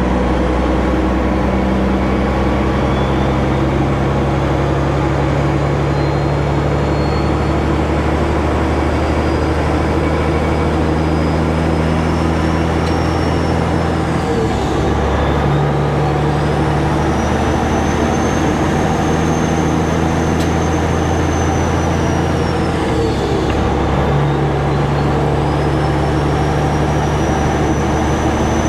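Caterpillar diesel engine of a Peterbilt 379 tractor pulling hard under load, with a high turbo whistle climbing as it accelerates. The engine note and whistle drop and build again twice, about halfway through and near the end, as it shifts up a gear.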